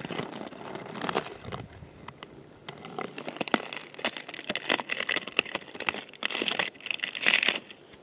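Fireweed plants rustling and crackling as flowers and leaves are torn off by hand, in irregular bursts with sharp snaps, loudest near the end.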